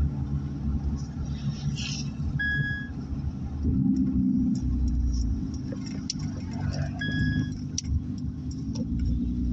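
Car engine and road noise heard from inside the cabin while driving, the engine note rising briefly about four seconds in. Two short high beeps sound a few seconds apart.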